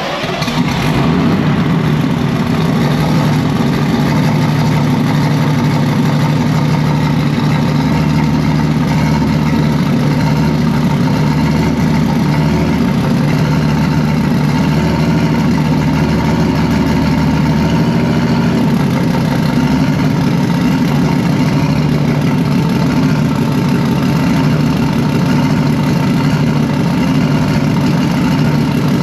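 An engine comes in suddenly at the start and then runs steadily.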